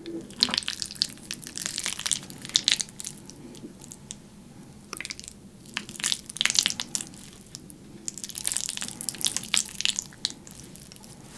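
Metal fork twirling and lifting spaghetti in a thick, sticky cream sauce made extra thick with melted mozzarella: wet, sticky, crackling stirring sounds in three spells with quieter pauses between.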